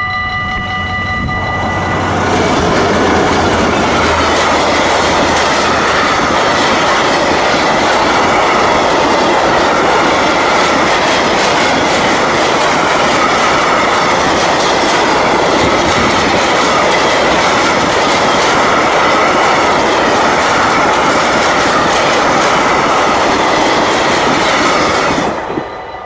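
A long freight train of hopper wagons passing close by on electrified track: loud, steady wheel-on-rail noise that builds about two seconds in and drops off suddenly near the end as the last wagon clears. A level-crossing warning bell rings with a steady tone at the start and again once the train has gone.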